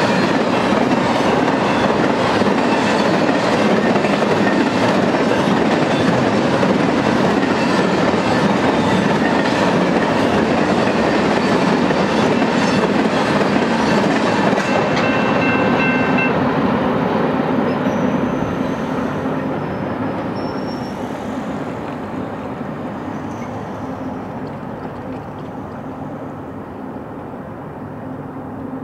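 Intermodal freight cars rolling past at track side: a steady rumble and clatter of steel wheels on the rails, with a brief thin wheel squeal about halfway through. From about two-thirds of the way in, the sound fades steadily as the end of the train passes and recedes.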